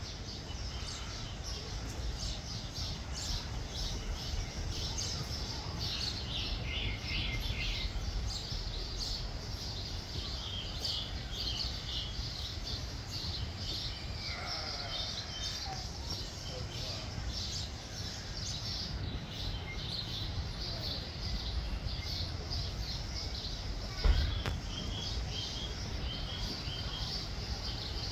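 High-pitched animal chirping: many short notes in quick runs, coming and going, over a steady low rumble. A single thump about 24 seconds in is the loudest sound.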